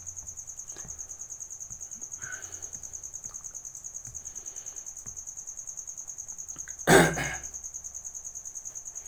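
A cricket chirps steadily in the background, a high-pitched note pulsing rapidly and evenly. About seven seconds in a person coughs once, the loudest sound.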